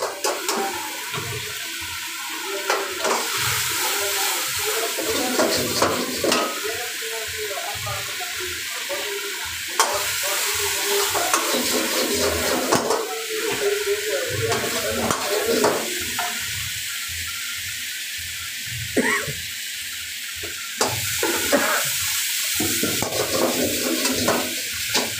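Paneer chilli sizzling in a steel wok over a high gas flame, a steady hiss, while a steel ladle stirs, scrapes and knocks against the wok and the food is tossed, giving sharp clanks scattered throughout.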